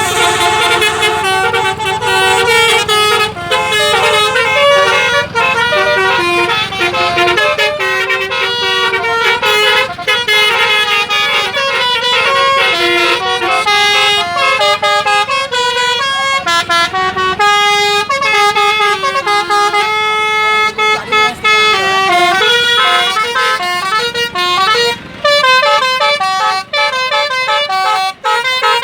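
Telolet basuri musical bus horns playing tunes: held horn notes stepping up and down in quick melodic runs, several overlapping, without a break.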